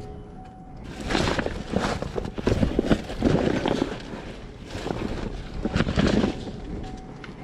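Trash being rummaged through by hand: rustling and clattering of handled items in irregular bursts, with short clicks and knocks.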